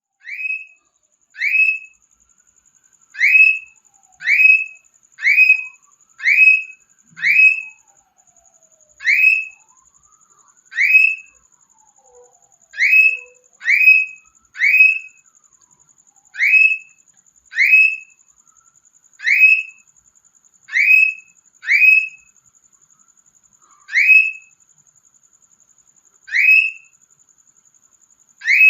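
Cockatiel calling over and over: loud, rising whistled calls, each about half a second long, repeated in irregular runs about a second apart.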